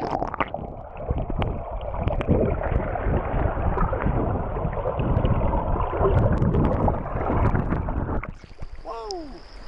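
Creek water heard through a camera microphone held underwater: a muffled, dense rush with many small clicks and knocks and no high end. A little over 8 seconds in the camera breaks the surface and the rush drops away.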